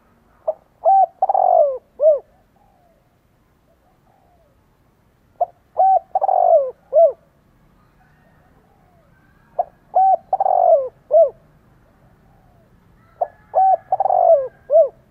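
A spotted dove cooing: four phrases about four seconds apart, each a short note, then a second note, a long falling note and a short final note.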